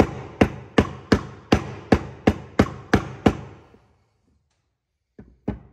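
Mallet striking a wooden board held over a wheel bearing, driving the new bearing onto the hub, about three blows a second. About ten blows, then a pause of over a second, then two more near the end.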